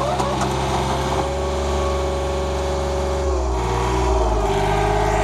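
Excavator engine running steadily under work, with a whining tone over it that changes pitch about three seconds in.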